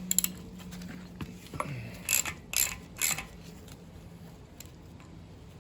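Stud remover tool being turned with a wrench to back a broken bolt's stud out of an engine head, giving sharp metallic ratcheting clicks: a quick cluster near the start, then three about half a second apart in the middle.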